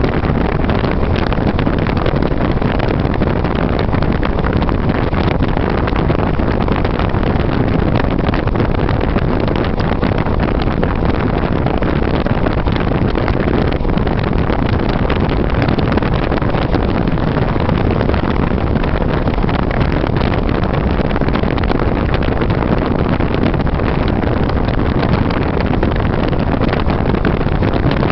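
Loud, steady rushing noise with nothing standing out from it.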